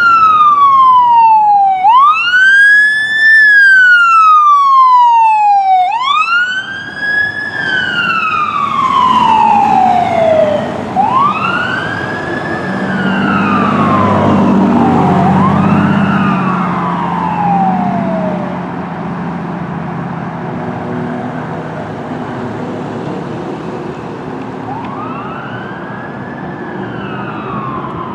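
Fire department medic squad's electronic siren wailing, rising and falling about every three seconds. It is loud at first and fades as the rig passes and pulls away. A heavy vehicle engine rumbles by midway, and another siren wails faintly near the end.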